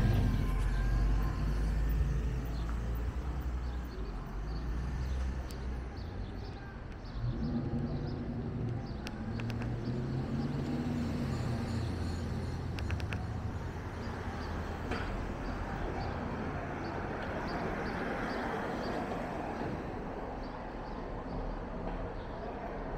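Street traffic: cars driving past one after another, with a loud passing rumble at the start. A pickup truck's engine rumbles past from about seven seconds in.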